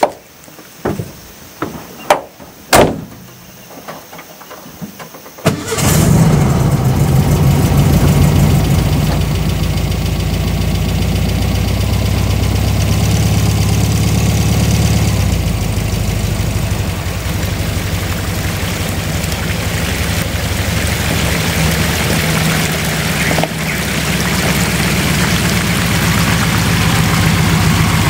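A few sharp knocks and clicks, then about five and a half seconds in a classic Volkswagen van's engine starts and idles steadily.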